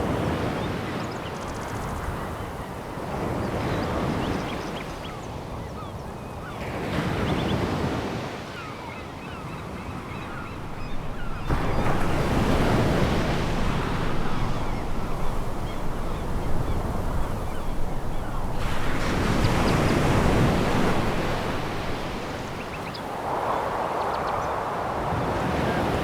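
Sea waves breaking and washing over a pebble beach, swelling and falling back in surges a few seconds apart.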